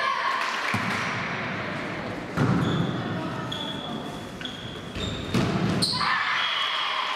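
Volleyball play echoing in a sports hall: the ball being struck and hitting the floor, short high squeaks on the court, and voices and crowd noise that grow louder about two and a half seconds in and again near the end.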